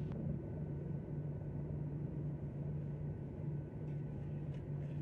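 Steady low hum and hiss inside a parked airliner's cabin, the aircraft's engines or air systems still running after landing, with a short click right at the start.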